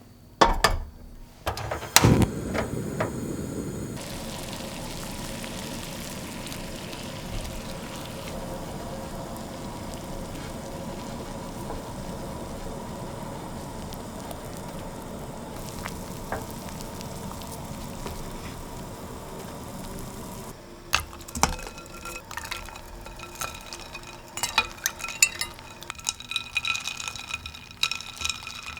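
Peaches simmering in a pot of water, bubbling steadily at the boil. A couple of sharp knocks come in the first two seconds, and a run of light clinks and taps from utensils follows about two-thirds of the way in.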